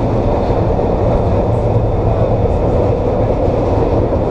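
SEPTA K-Car light rail vehicle in motion: a steady, loud running noise of wheels on rail and traction equipment with a low hum, without distinct clicks or changes.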